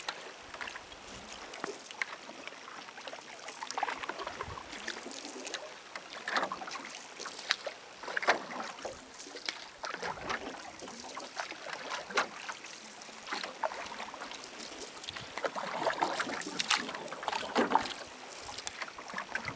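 Canoe being paddled across calm water: paddle blades dipping and pulling, with splashes and drips every second or two.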